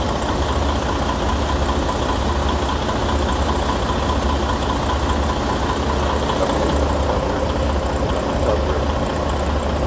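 Semi-truck diesel engine idling with a steady low rumble.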